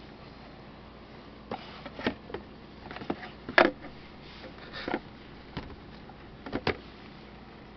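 Handling noise of a cardboard product box being moved and set down on a table: a string of short knocks and light rustles over a few seconds, the loudest one about halfway through.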